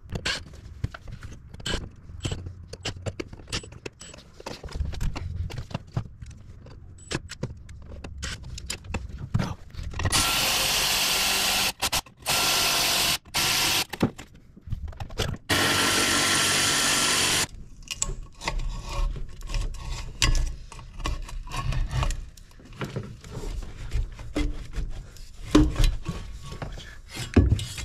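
A cordless Milwaukee ratchet runs in several bursts of a few seconds each, spinning off the intercooler tube clamps. Before and after the bursts come the clicks and clatter of hand tools and parts being handled.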